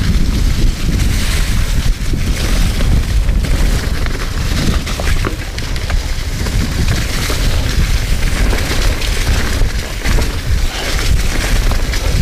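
Wind buffeting the microphone of a chest-mounted camera on a descending mountain bike, a heavy rumble, over the hiss of tyres rolling through dry fallen leaves on a dirt trail, with scattered clicks and rattles from the bike.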